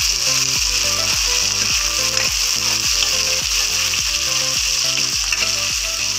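Sliced onions, tomato and green chillies sizzling as they fry in oil in a metal kadai while a steel ladle stirs them. Beneath the steady sizzle runs a low repeating pattern of tones, about three a second.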